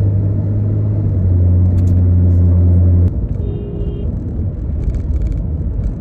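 Car engine and road noise heard inside the moving car's cabin: a loud, steady low hum that cuts off suddenly about three seconds in, followed by a short, higher tone lasting under a second and a few light clicks.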